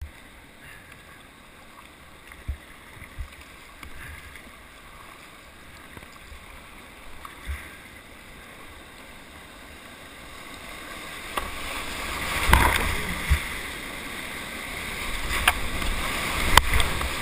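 Whitewater kayak running a rocky river rapid: quiet flowing water with a few low thumps at first, then the rush of whitewater building from about two-thirds of the way in and staying loud as the boat drops into the foam, with several sharp knocks and splashes against the boat.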